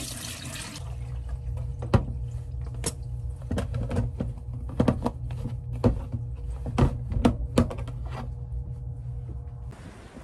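A kitchen tap runs briefly and shuts off, then a clear plastic food container of soaking rice is handled, with a series of sharp plastic clicks and knocks as its lid is pressed and snapped shut. A steady low hum runs underneath.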